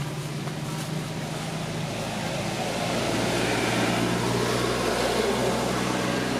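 A motor vehicle's engine running with a steady low hum. A broad road noise swells from about two and a half seconds in and stays loud.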